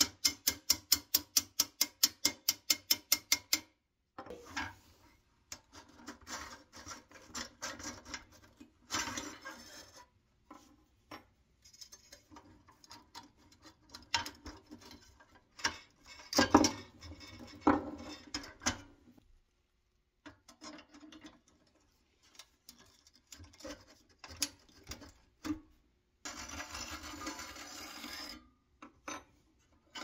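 A small hammer taps quickly and evenly, about six strikes a second, on the axle of a pressed-steel toy bulldozer's idler wheel for the first few seconds. Then comes irregular scraping, rubbing and knocking of the steel parts as the wheels and track frame are worked loose by hand.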